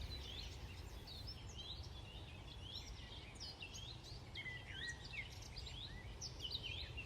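Small songbirds chirping in many quick short notes, several a second, over a steady low rumble.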